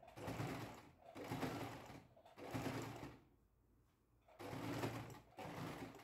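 Singer electric sewing machine stitching in five short runs of about a second each, stopping and starting between them, with a longer pause a little after halfway.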